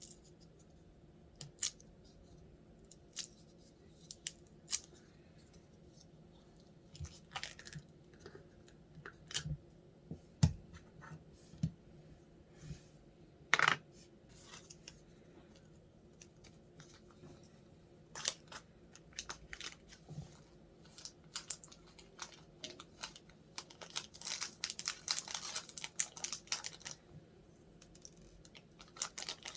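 Slime being squeezed and worked by hand, making scattered sticky clicks and pops, with a denser run of rapid crackling a few seconds before the end.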